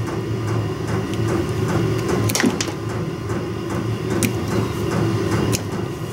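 Steady mechanical hum from a running machine, with a few sharp clicks and knocks over it.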